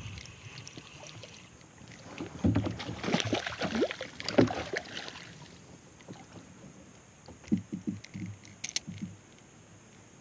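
Water sloshing and splashing around a fishing kayak, with a busy burst of splashes and clicks from about two and a half to five seconds in and a few soft thumps near the end.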